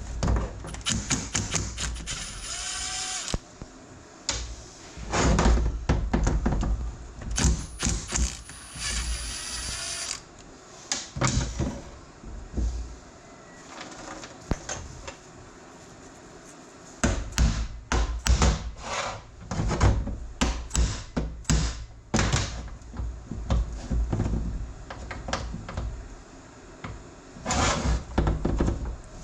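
Tools working on the metal body and parts of a Minneapolis Moline M602 power-steering control valve during disassembly. Irregular clanks and knocks of metal on metal, with two stretches of a few seconds each of a steadier grinding, tool-driven noise near the start and about a third of the way in.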